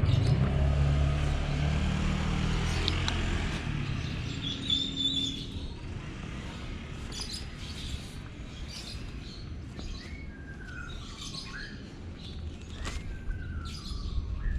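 Yamaha MT-09's inline three-cylinder engine running steadily at low revs through a Racefit Slash exhaust, fading out over the first five seconds or so. After that, birds chirp, with short falling calls in the second half.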